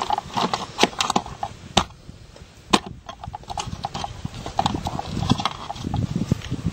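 Plastic in-use outlet cover clicking and knocking against the box and siding as it is fitted over the screws by hand: a string of irregular sharp clicks.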